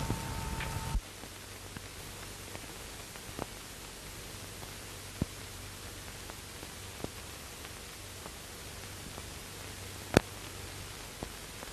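Steady hiss of an old film soundtrack with scattered crackling clicks and one sharper pop near the end. A held tone with a low rumble under it cuts off abruptly about a second in.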